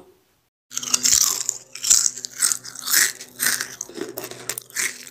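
Someone chewing crisp home-made deep-fried potato chips. A first crunch comes about a second in, then crunching chews roughly every half second. The loud, brittle crunch is the sign that the chips are fried crisp.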